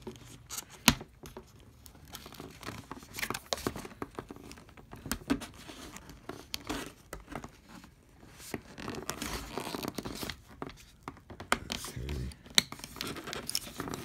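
Cardboard packaging insert rustling, crinkling and tearing lightly as fingers work a twisted wire tie free from it, with many small scattered clicks.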